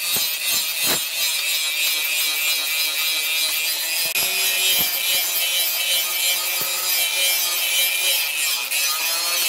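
Angle grinder with an abrasive disc grinding a steel machete blade: a steady high hiss of the disc on the steel over the steady hum of the grinder's motor, with a few faint knocks.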